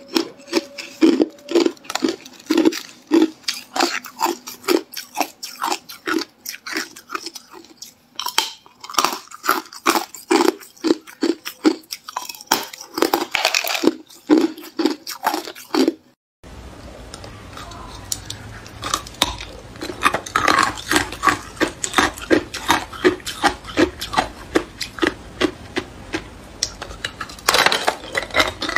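Hard clear ice being bitten and chewed: a fast, uneven string of sharp crunches and cracks. After a break about halfway, the crunching goes on over a low steady hum.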